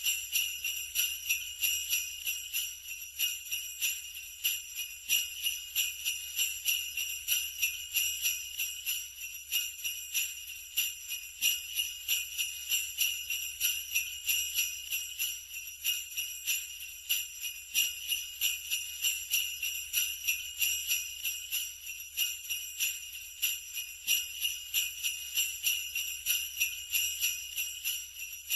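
Sleigh bells jingling continuously, shaken in a steady rhythm of a few shakes a second.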